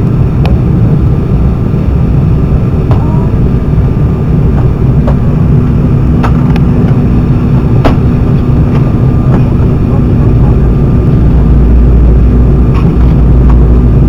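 Embraer E195 jet heard from inside the cabin: the steady noise of its engines and rushing air, with a few sharp rattles. A steady hum comes in about a third of the way through, and a deeper rumble grows louder near the end.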